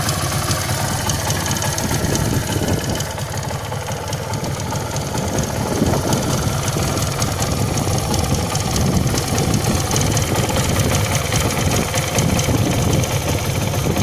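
MZ ETZ 250 single-cylinder two-stroke motorcycle engine idling steadily. The clutch drive gear's thrust washers, spring ring and needle bearing have been renewed, and the idle rattle is said to be gone.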